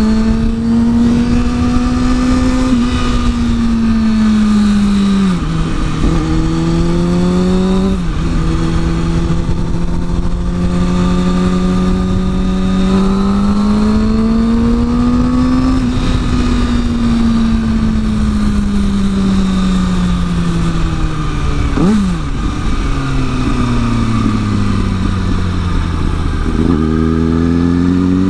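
Sport motorcycle engine, heard from the rider's seat with wind rushing past, pulling up through the gears: its note climbs and drops suddenly at each upshift early on. Later it winds down as the bike slows, gives a quick sharp blip, then climbs again from a low note near the end.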